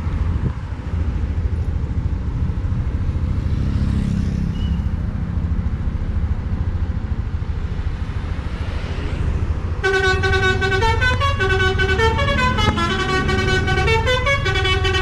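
Bus diesel engine running with a steady low rumble. About ten seconds in, a Basuri telolet horn starts up, playing a quick melody of stepped, multi-tone horn notes.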